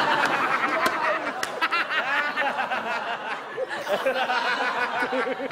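A group of people laughing and shouting over one another, with hand claps in the first second or two.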